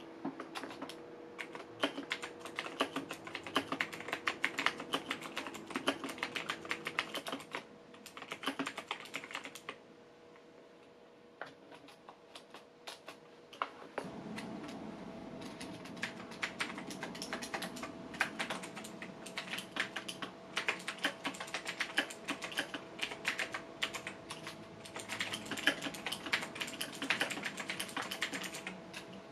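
Typing on a computer keyboard: quick runs of keystrokes with short breaks, and a pause of a few seconds near the middle before the typing starts again.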